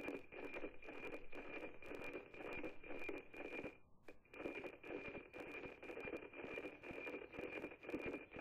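NOAA-18 weather satellite's APT image signal received by radio on 137.9125 MHz: a steady high tone with a rough, buzzy undertone and a regular ticking beat. It drops out for a moment about four seconds in.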